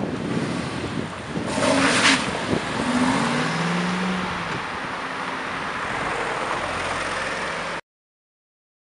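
Aston Martin V8 Vantage's engine revving as the car pulls away and accelerates, loudest just under two seconds in, with the engine note rising through the revs a little later. The sound cuts off suddenly near the end.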